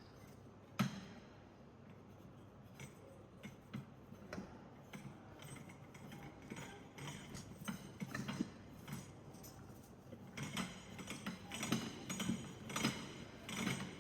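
Scattered clicks and knocks of trolley wheels and frame parts being handled and rotated into place. One sharp knock comes about a second in, and the handling gets busier after about ten seconds.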